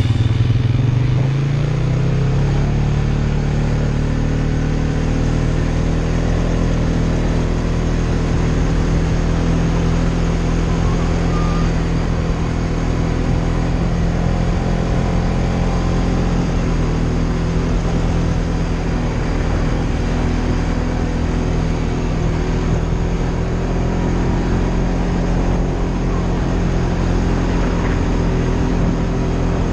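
Polaris Sportsman ATV engine running under way, its pitch rising over the first couple of seconds as it speeds up, then holding steady at cruising speed.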